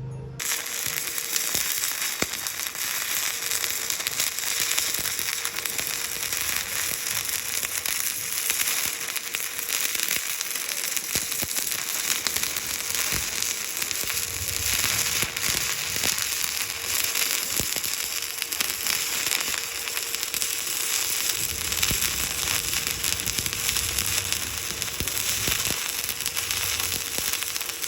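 Stick (arc) welding: the electrode arc strikes just after the start and then crackles and sizzles steadily as the bead is run.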